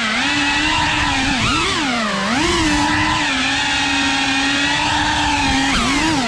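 FPV racing quadcopter's brushless motors and propellers whining steadily, the pitch dipping and swinging back up sharply several times as the throttle is chopped and punched.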